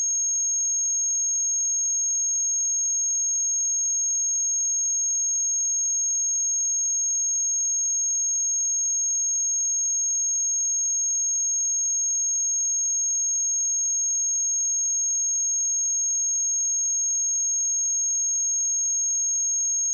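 A pure 6514 Hz sine-wave test tone: a single high-pitched steady whistle held at an even level throughout.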